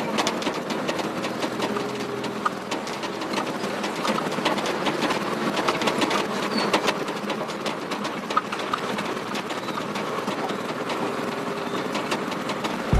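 Truck driving slowly over a rough dirt and gravel track, heard from the cab: engine running under a constant run of irregular rattles and clatters from the bodywork.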